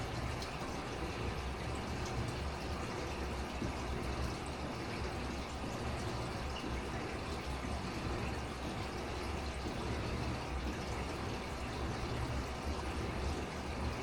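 Aquarium water running steadily, the sound of the tank's filter or pump circulating water, over a steady low hum.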